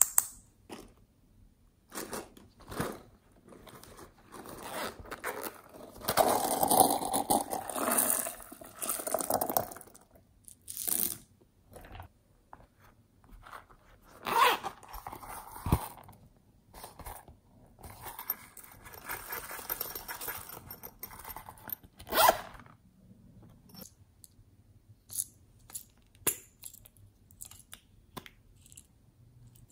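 Small plastic toys and containers handled by hand: scattered plastic clicks and taps, with longer stretches of scraping and crinkling about six seconds in and again around twenty seconds.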